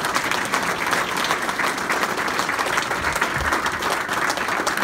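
Audience applauding: many hands clapping at once, steady and dense.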